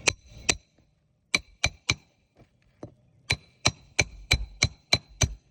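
Hammer striking metal on an asphalt-shingle roof: about a dozen sharp blows in three runs (two, three, then seven quick strikes about three a second), each with a short metallic ring.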